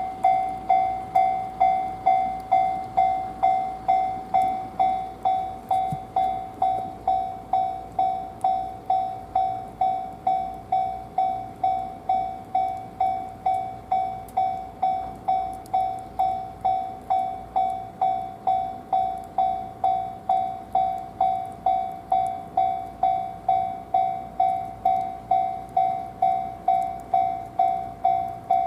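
Japanese railway level-crossing warning bell ringing on and on, about two dings a second on one steady high tone. It keeps ringing with all trains suspended for heavy snow, which the uploader suspects is a crossing fault.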